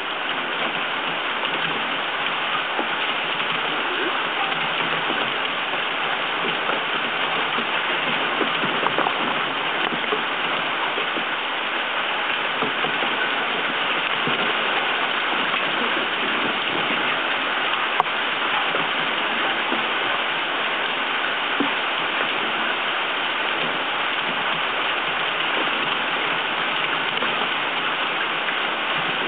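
Steady hurricane rain: an even, dense hiss of falling water with no let-up, and one sharp tick a little past halfway.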